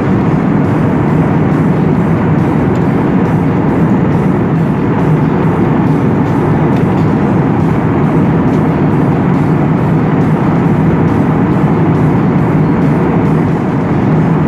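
Steady cabin noise of a jet airliner in flight: an even, low rush of engine and airflow noise with no break or change.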